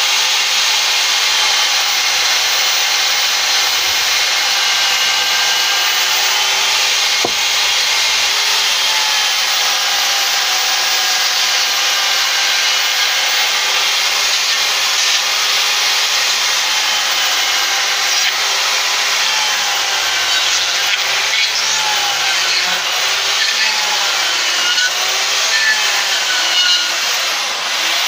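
Corded electric Stihl chainsaw running and cutting into a wooden log. Its motor pitch wavers up and down as the bar bites and eases, more so in the second half.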